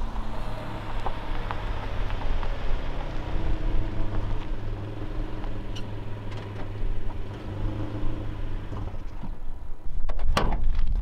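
Toyota HiAce van's engine running as it rolls in over a gravel lakeshore with tyre noise, then settles after about nine seconds. Near the end come footsteps and sharp clicks at the van's rear hatch as it is opened.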